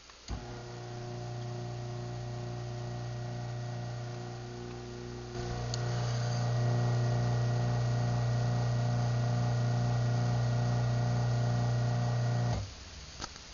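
Craftsman 1/2 hp garage door opener (139.53930DM) motor running as it closes the door: a steady motor hum that gets louder about five seconds in, then stops abruptly near the end, followed by a faint click.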